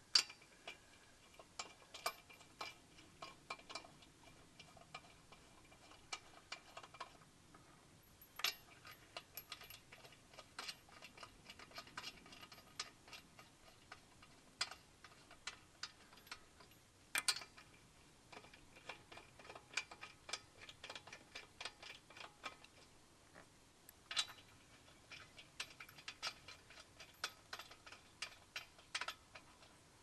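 Chrome lug nuts being spun by hand onto the wheel studs of a Mitsubishi Lancer's alloy wheel: a run of small, irregular metallic clicks of nut on thread, with a few sharper clinks spaced several seconds apart.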